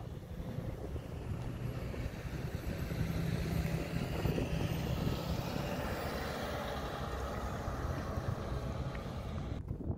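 School bus engine running as the bus drives past. It makes a low, steady drone that grows louder in the middle of the stretch as the bus comes near.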